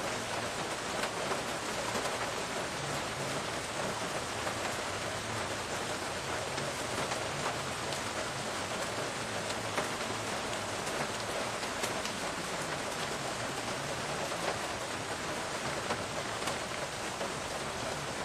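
Steady rain falling, a constant even hiss with scattered sharper drop ticks on nearby surfaces.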